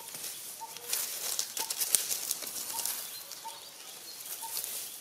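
Dry leaf litter crackling and rustling under macaques moving over it, loudest in the first couple of seconds. Behind it, a short, high, even-pitched call repeats about once every half second to second.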